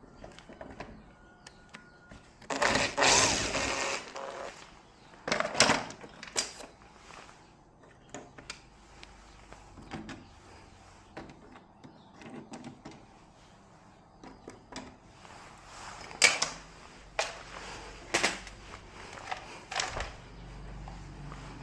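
Small objects and tools being handled during a repair: scattered clicks and knocks, with a louder rattling burst about three seconds in.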